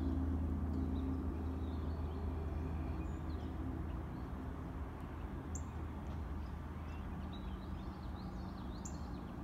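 Low, steady engine drone of an aircraft on approach, easing off over the first few seconds, with small birds chirping.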